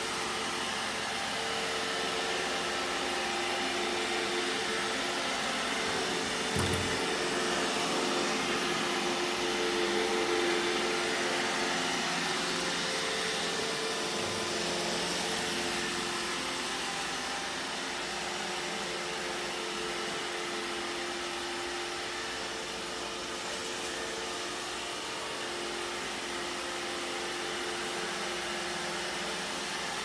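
iRobot Roomba e5 robot vacuum running across a wooden floor: the steady hum and hiss of its motors, with one brief knock about seven seconds in.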